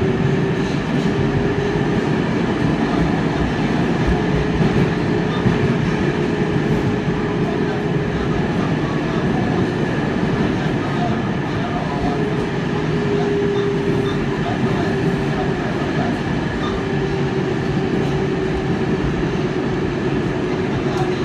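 An R188 subway train on the 7 line, heard from inside the car, running steadily through the tunnel: a constant rumble of wheels on rail with a steady humming tone over it.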